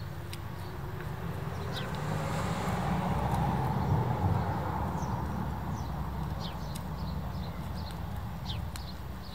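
Bernese mountain dog chewing a pig's ear, with sharp crunching clicks as its teeth work on the tough cartilage. A broad rushing noise swells and fades around the middle.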